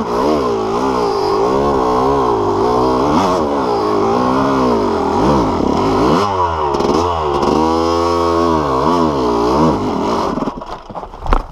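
Yamaha YZ250 two-stroke dirt bike engine, fitted with a BeRad Freight Train performance kit, revving up and down with repeated throttle blips as the bike is ridden through a gnarly trail section. The engine note drops off near the end, followed by a few sharp knocks.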